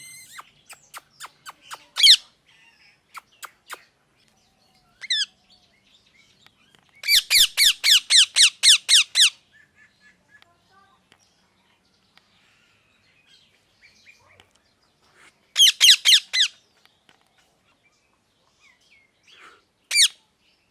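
Pet parrot chirping: faint clicks and single shrill calls, then a fast run of repeated shrill chirps, about five a second for two seconds. A second, shorter run comes later, and one last chirp near the end.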